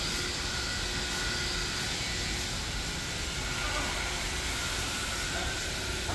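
Steady rushing background noise with a few faint steady tones running through it; no single event stands out.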